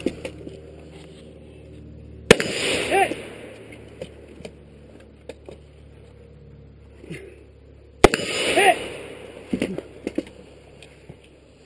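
Two rifle shots about six seconds apart, each a sharp crack with a short echoing tail, from shooters firing prone at steel targets.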